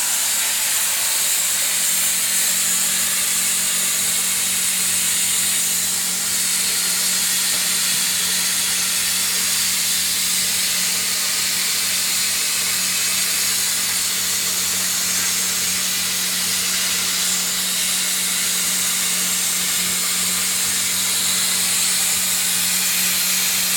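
CNC plasma cutting torch cutting steel plate: the arc and its air jet make a loud, steady hiss, with a steady low hum underneath.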